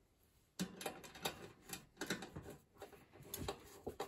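Small screws handled and a screwdriver turning a screw into the sheet-metal panel of a toaster: irregular light clicks and scrapes, starting about half a second in.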